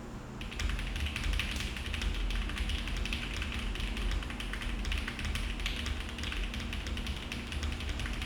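Typing on a Mode Envoy custom mechanical keyboard with HMX Pearl switches, an FR4 plate, plate and case foam, and GMK Tiramisu keycaps. Rapid, continuous keystrokes start about half a second in.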